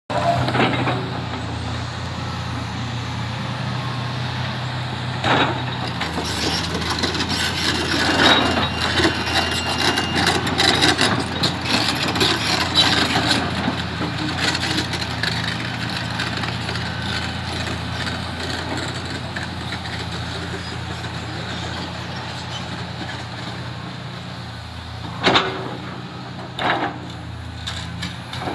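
Komatsu PC350 excavator's diesel engine running steadily under load. A long stretch of scraping and grinding is heard as the machine works a granite block over rock, with a few sharp heavy knocks, two of them close together near the end.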